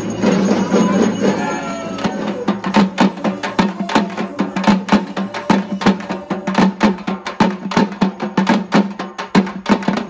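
Hand-held frame drums of a Tamil procession band beaten in a fast, dense rhythm of about four to five strokes a second, starting about two seconds in; before that, people's voices.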